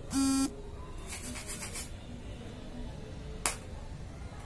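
Canon iR3300 control-panel beeper sounding a steady beep that cuts off about half a second in, a key-press confirmation as the repaired buttons are tested. Then faint rustling and a single sharp click about three and a half seconds in.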